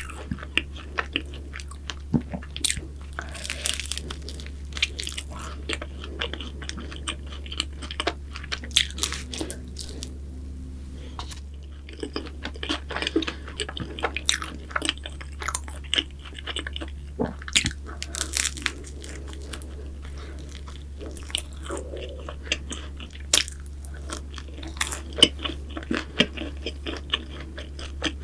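Close-miked eating of flaky pastry: bites and chewing with irregular crisp crunches and wet mouth sounds, over a steady low hum.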